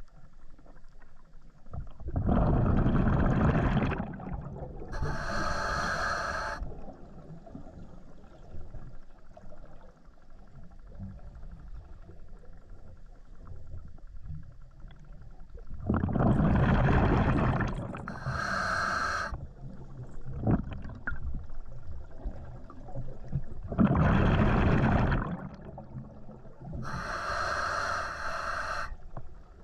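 A scuba diver breathing through a regulator underwater, three breaths. Each is a loud burst of exhaled bubbles of about two seconds, followed by the shorter hiss of the regulator on the inhale.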